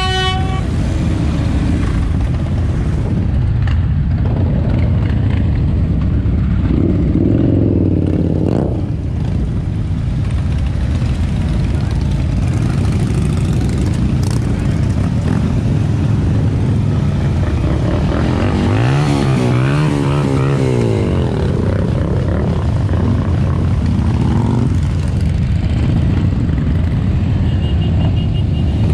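A procession of motorcycles, mostly Harley-Davidson V-twin cruisers, riding slowly past one after another in a continuous low engine rumble. About two-thirds of the way through, one engine revs up and back down.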